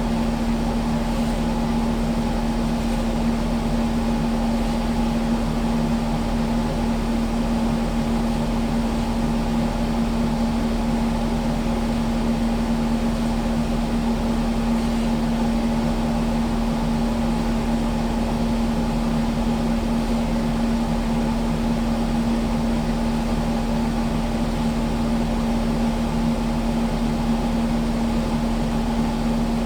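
Kubota skid steer's diesel engine idling steadily, an even unchanging hum.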